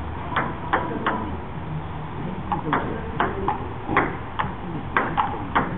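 Table tennis rally: a celluloid ball clicking off rubber paddles and bouncing on the table in a quick, irregular run of sharp ticks, about two a second, with a short break about a second in.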